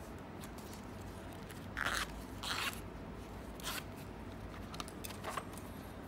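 A leather cartridge wallet of pistol rounds being handled, folded shut and laid in a foam-lined plastic gun case: a few short rustling, crunching scrapes, the loudest about two seconds in.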